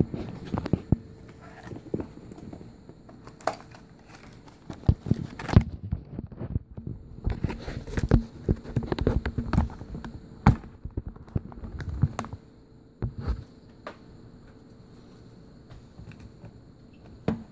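Irregular clicks, taps and light knocks from small tools and phone parts being handled on a repair bench, thinning out near the end, over a faint steady tone.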